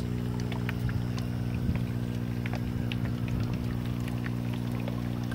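Steady low electric hum from the pump of a raft aquaponics system, with water bubbling and dripping in the tank.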